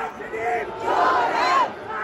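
Crowd of protesters chanting a slogan in unison, the shouted phrases coming about every two seconds.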